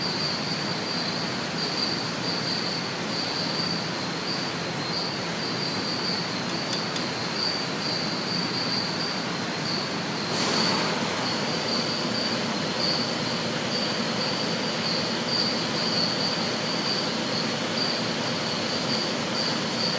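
Steady hiss with a constant high-pitched whine and a faint low hum, swelling briefly about ten seconds in.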